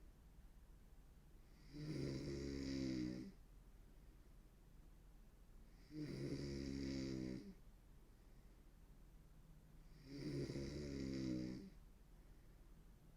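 A young woman snoring hard: three snores about four seconds apart, each lasting about a second and a half.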